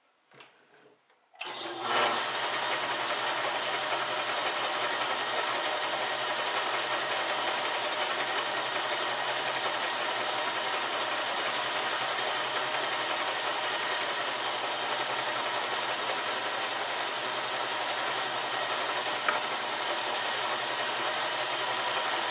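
Old Clausing metal lathe switched on about a second and a half in, then running steadily while taking a 20-thousandths cut on a steel slug.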